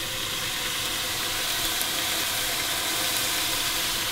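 Beef and onion frying in oil in a stainless steel pot, a steady sizzling hiss.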